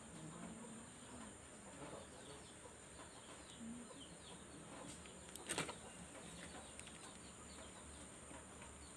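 Faint rural ambience: birds calling over a steady high insect drone, with one sharp click about five and a half seconds in.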